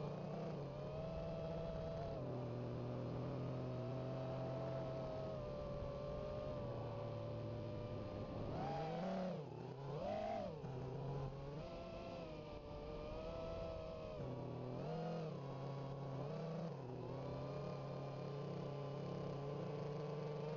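FPV quadcopter's motors and propellers whining steadily, heard from its onboard camera; the pitch shifts up and down, with two sharp dips and swoops back up about nine and ten seconds in.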